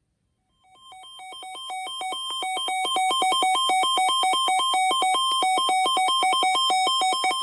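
Electronic alert tone switching rapidly back and forth between two pitches. It fades in over the first couple of seconds, holds steady and loud, and cuts off suddenly at the end.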